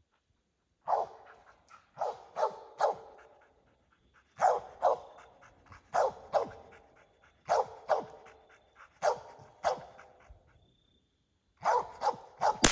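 Squirrel dog barking treed, short barks in groups of two or three every second or so, marking the squirrel up the tree. Right at the end a single sharp crack with a fading echo: the .22 rifle shot that hits the squirrel.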